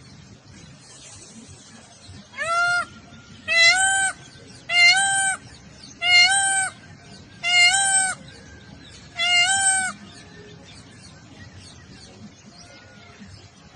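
Peacock (Indian peafowl) calling six times in a row: loud, high calls, each under a second and rising slightly in pitch at the start, about a second and a half apart.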